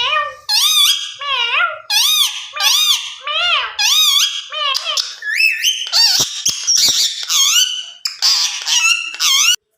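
Indian ringneck parrot chattering in a high, wavering, squeaky voice: a rapid string of short speech-like phrases, with a few sharp clicks about six to seven seconds in.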